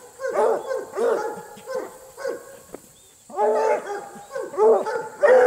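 Treeing Walker coonhounds barking at a caged raccoon, a quick run of short barks with a pause of about a second near the middle.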